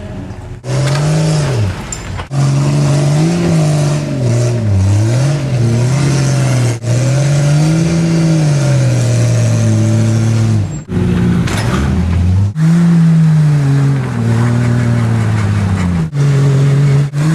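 Off-road vehicle engine revving up and down again and again as it crawls over obstacles, broken by several abrupt cuts.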